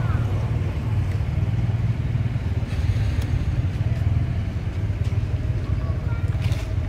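Steady low rumble of a running motor.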